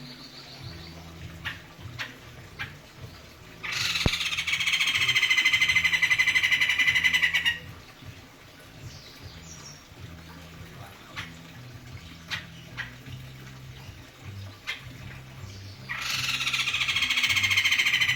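White-crested laughingthrush giving its loud, fast cackling call in two bouts of about four seconds each, every bout a rapid run of notes that drops in pitch at the end, with faint ticks in the quieter stretch between.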